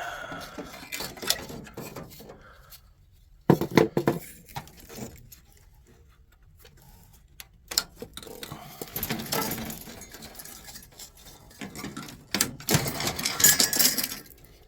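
Metal server-tower parts clinking and clattering as they are pulled loose and handled, in scattered knocks and a few bursts of rattling, the loudest near the end.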